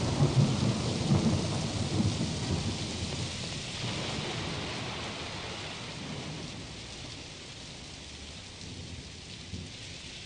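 Thunder rumbling and rain falling: the thunder is loudest at the start and dies away over the first few seconds, while steady rain hiss goes on and slowly fades out.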